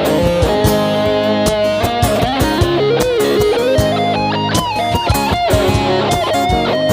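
Band playing at a sound check: a guitar plays a lead melody with bent, sliding notes over bass and regular drum hits.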